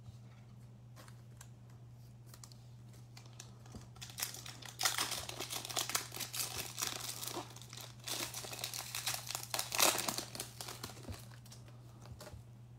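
Foil wrapper of a Panini Illusions basketball card pack being torn open and crinkled, starting about four seconds in and going on for several seconds before it settles to quiet handling of the cards.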